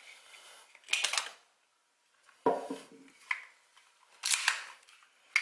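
STI 2011 Edge .40 S&W pistol being cleared for a safety check: a series of sharp metallic clicks and short sliding sounds as the slide is worked and the action checked, about five separate events with a crisp click at the end.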